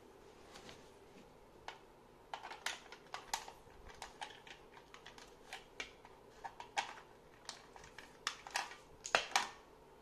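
Plastic mains plug and power cord being handled and pushed at a power strip: an irregular string of sharp clicks and knocks, the loudest pair near the end.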